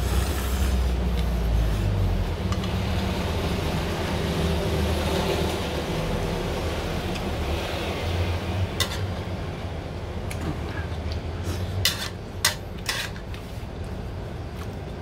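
Someone eating ramen noodles with chopsticks from a metal pot, with a noisy stretch of slurping and chewing and a few sharp clicks about nine to thirteen seconds in, over a steady low rumble like traffic.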